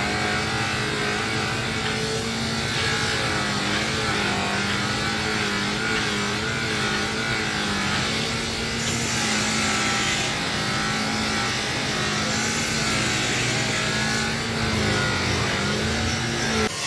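A motor running steadily, its hum wavering slightly in pitch.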